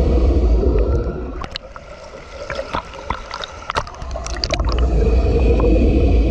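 Muffled rumble of churning pool water heard through an underwater camera as a swimmer kicks past. Around a second in the rumble eases off, and for about three seconds sharp splashes and bubble pops crackle as the camera reaches the surface. The underwater rumble then returns.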